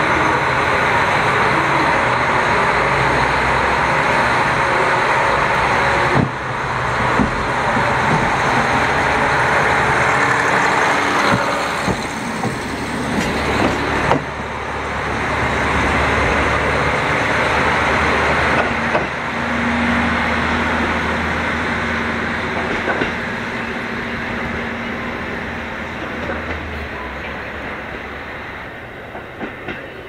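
KiHa 40 diesel railcar pulling away under power and passing close by, its diesel engine running hard. Its wheels click over rail joints in scattered bursts. It then fades slowly as it draws away down the line.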